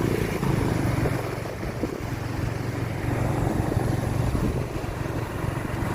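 Motor vehicle travelling along the road: a steady low engine hum under an even rushing road noise.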